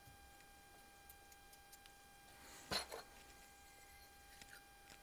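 Near silence: a faint steady electrical hum, with faint clicks from small BB-pistol parts being handled by hand and one brief louder rustle a little past halfway.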